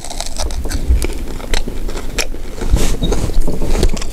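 Close-up biting and chewing of an ice cream drumstick made to look like fried chicken, its crispy outer coating giving a run of sharp crunches and clicks.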